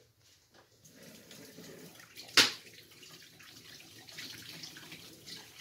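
Kitchen tap running while hands are washed under it; the water starts about a second in and grows louder near the end. A single sharp knock comes about halfway through.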